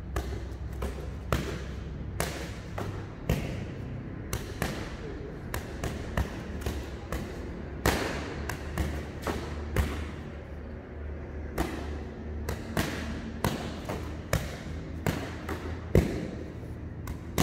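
Boxing gloves smacking focus mitts in sharp hits, one or two a second and often in quick combinations, mixed with duller thuds of kicks being blocked; the loudest hit comes near the end. A low steady hum runs underneath.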